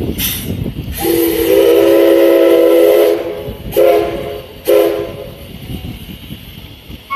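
C11 steam tank locomotive's whistle. A short burst of steam hiss comes first, then one long blast of about two seconds, then two short blasts.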